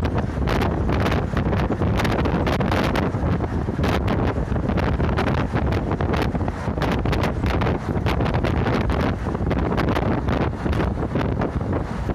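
Ride noise of a moving route bus: steady engine and road rumble with wind buffeting the microphone and frequent short rattles.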